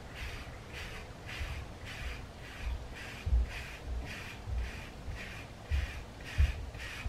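A bristle wave brush swept again and again over short waved hair, about one and a half strokes a second, each stroke a scratchy swish with a dull low thump, two of them louder.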